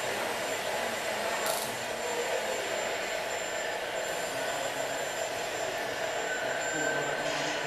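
Radio-controlled model excavator's electric motors whirring steadily as it digs and tips wood chips. Two short rustles cut in, about a second and a half in and near the end.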